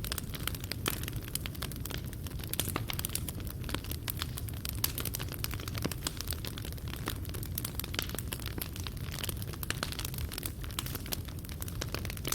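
Wood fire burning in a fireplace: dense, irregular crackles and small pops of burning coals over a steady low rumble.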